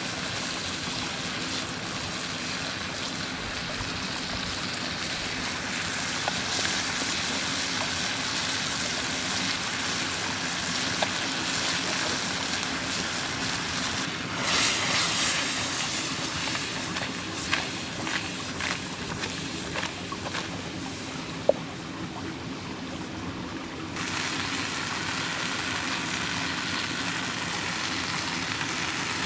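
Steady sizzling and bubbling of spaghetti and bolognese sauce cooking in a pan over a wood fire, with a few sharp clicks.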